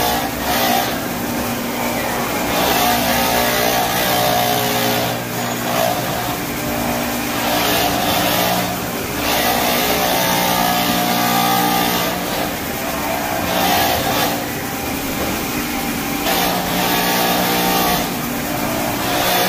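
Compact walk-behind floor scrubber-dryer running as it scrubs a wet hardwood floor, its brush and suction motors giving a steady hum under a hiss that swells and fades every second or two as the machine is worked back and forth through the wax-stripping slurry.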